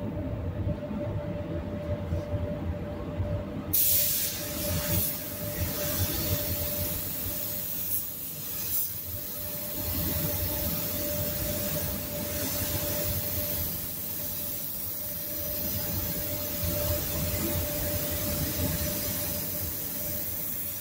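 DeVilbiss gravity-feed paint spray gun spraying base coat: a compressed-air hiss switches on suddenly about four seconds in and runs on steadily. Under it, the paint booth's extraction fan keeps up a steady rumble and hum.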